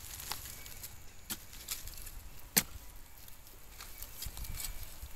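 A metal bar digging into hard, dry clay soil: a few scattered sharp strikes and scrapes as it jabs and pries at the earth, the loudest about two and a half seconds in.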